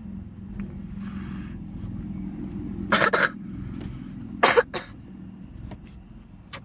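A child coughing three times: one cough about three seconds in, then two close together about a second and a half later, over a steady low hum.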